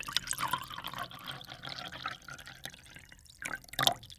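Thick chocolate milkshake pouring from a blender jar into a drinking glass, a continuous glugging splash that rises slightly in pitch as the glass fills, with two louder splashes near the end.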